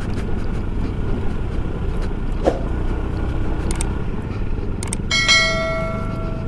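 SYM Cruisym 250 scooter running along a rough dirt track: a steady engine drone mixed with tyre noise and scattered small knocks. About five seconds in, a click is followed by a ringing, bell-like chime from the subscribe-button overlay that lasts about a second and a half.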